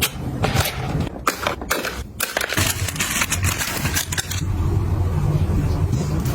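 Objects being handled: a few sharp clicks and knocks, then about two seconds of rustling, over a low steady hum.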